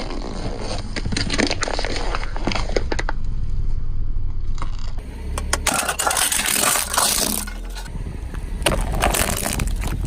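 Objects crunching and crackling as they are crushed under a car's tyre, in several bouts over a steady low rumble.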